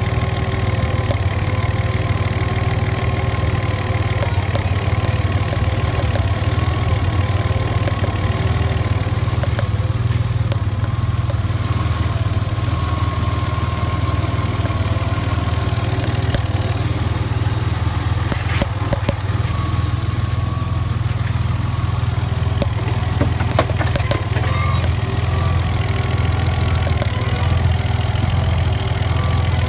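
Ford Cougar engine idling steadily, with scattered short pops over the running note; one of the clearest is about two thirds of the way through.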